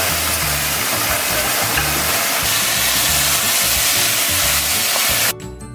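Pork frying in a hot wok, a loud steady sizzle over background music with a beat. The sizzle cuts off suddenly near the end, leaving only the music.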